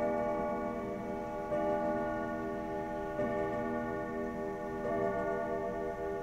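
Sligh grandfather clock's Kieninger triple-chime movement striking the hour: four identical deep, ringing strokes about a second and a half apart, each ringing on under the next.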